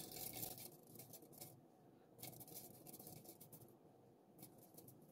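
Faint patter and rustle of brown sugar sprinkled by hand into a metal bundt pan, in two short stretches, otherwise near silence.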